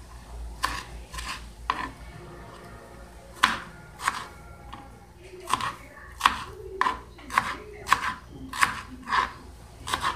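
Kitchen knife dicing tomato on a wooden cutting board: a string of sharp knocks as the blade hits the board, uneven at first and coming faster, about two or three a second, in the second half.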